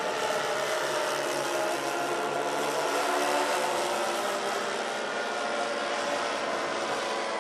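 Four-engine 1/10-scale RC model Lockheed Super Constellation flying overhead, its engines and propellers giving a steady drone made of several overlapping tones that drift slightly in pitch.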